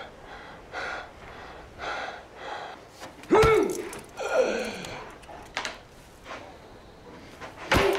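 A man gasping for breath in short heaves, then two louder strained cries that fall in pitch, and a sharp crack near the end.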